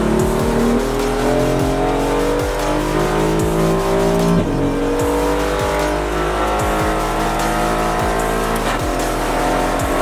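Aston Martin Vantage GT4 race car's Mercedes-AMG 4.0-litre twin-turbo V8 under hard acceleration, heard from inside the cabin: the engine note climbs steadily, drops sharply at an upshift a little under halfway through, then climbs again.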